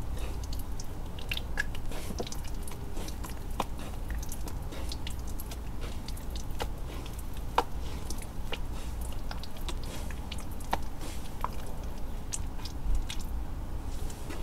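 Hands squeezing and swirling thick wet gym chalk paste: sticky squelching with many small wet clicks and pops.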